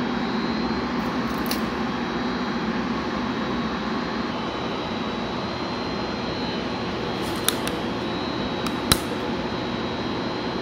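Electric motor running steadily with a faint high whine over its hum; two sharp clicks come near the end.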